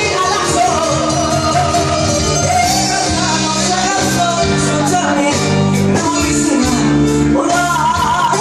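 Loud band music with a singing voice carrying a wavering melody over a steady, changing bass line.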